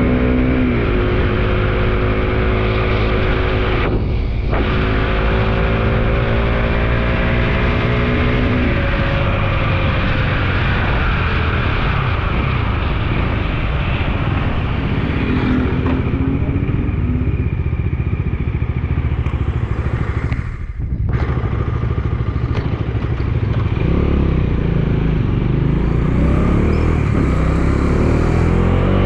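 Bajaj Dominar 250 motorcycle engine running on the road. The engine note breaks briefly twice, about four seconds in and again about twenty seconds later, and rises near the end as the bike speeds up.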